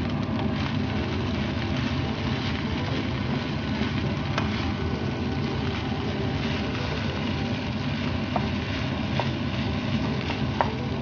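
Kimchi fried rice sizzling in a pan as it is stirred, over a steady low hum, with a few sharp clicks of the spatula against the pan near the end.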